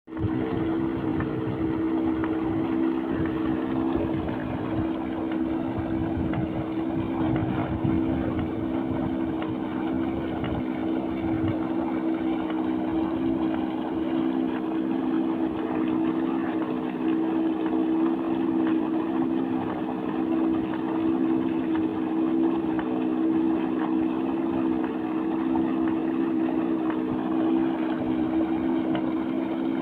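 A tubewell pump running with a steady, unchanging hum, over the rush of water pouring from its outlet pipe and splashing in the channel.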